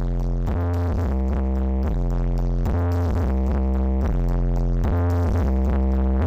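Electronic dance music with a heavy bass line and synthesizer chords, played loud through the Blizzard Audio sound system.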